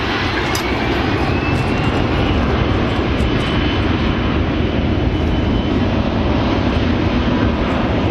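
Boeing 737-400's CFM56 jet engines at high power for the takeoff roll: a loud, steady rush of jet noise with a thin whine that rises in pitch over the first two seconds as the engines spool up, then holds.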